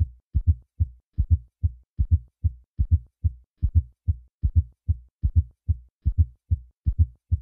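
Heart sounds auscultated at the cardiac apex: short low thuds, evenly spaced about two and a half a second, with silence between beats.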